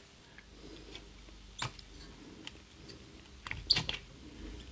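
A few light clicks and taps from small parts and tools being handled at a workbench, the strongest a quick cluster late on, over a faint low hum.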